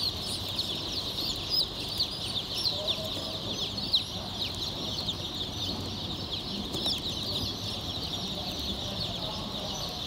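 A crowd of day-old chicks peeping together in hatchery crates: many high, short peeps overlapping without a break.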